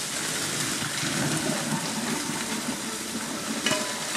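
Boiling water and gnocchi poured from a stainless steel stockpot into a metal colander in a steel sink: a steady rush and splash of water. A short metallic clink near the end.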